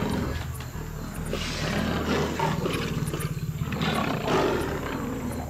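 Leopard and lion growling and snarling at each other in a standoff over a kill, a low rough rumble broken by several breathy snarls.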